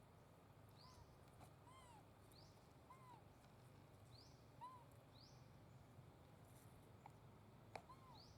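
Faint animal calls: short calls that rise and fall in pitch, repeated about once a second, with quick high rising chirps between them.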